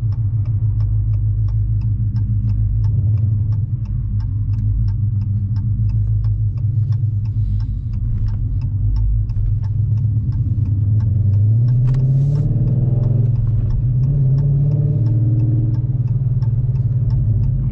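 The 6.4-litre HEMI V8 of a Dodge Challenger R/T Scat Pack, heard from inside the car while it drives, running through long-tube headers and a Flowmaster exhaust with a steady low drone. About eleven seconds in, the engine note rises as the car accelerates, then holds at the higher pitch. A faint rapid ticking runs underneath.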